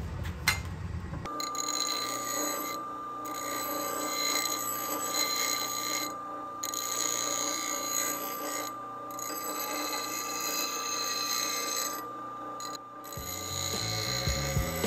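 Bench grinder wheel grinding a steel chisel tang: a steady high ringing whine, with the grinding noise dropping out briefly about every three seconds.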